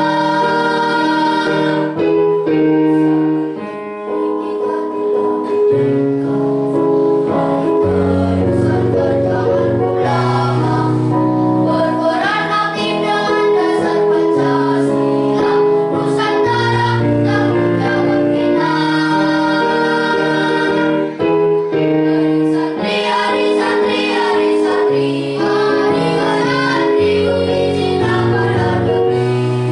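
Children's choir singing a sustained, melodic song together, over a low instrumental accompaniment with a stepping bass line.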